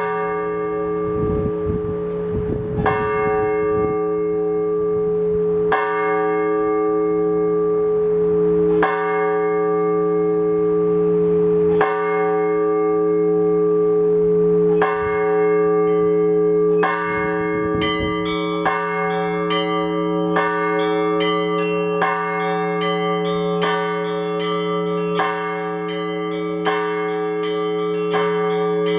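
Orthodox church bells rung by a bell ringer. A heavy bell is struck about every three seconds, its hum ringing on between strokes; about two-thirds of the way in, smaller bells join with quicker, higher strikes in a full peal. Gusts of wind rumble on the microphone near the start.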